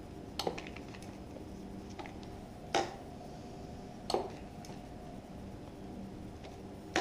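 Light metallic clicks from motorcycle brake bleeding, as a wrench works the front caliper's bleeder screw and the brake lever is squeezed and released. A quick cluster of clicks comes about half a second in, then single clicks roughly every one and a half seconds over a faint steady hum.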